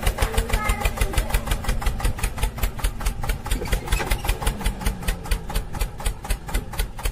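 Tractor engine running with a steady chugging beat, about seven beats a second.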